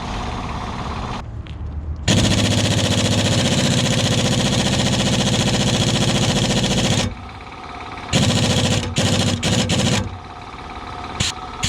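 Impact wrench hammering in one long burst of about five seconds, then several short bursts, on a rusted, seized nut that will not come loose.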